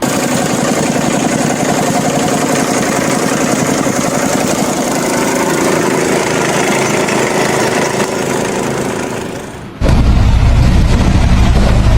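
An engine running steadily for about ten seconds, then a sudden change to a louder, deeper rumble.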